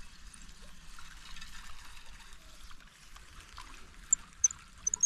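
Water trickling and splashing softly, with a few short, sharp, high-pitched clicks near the end.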